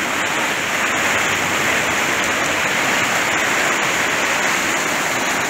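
Fast-flowing flood water rushing through the gap under a bridge as churning white water: a loud, steady rush with no let-up.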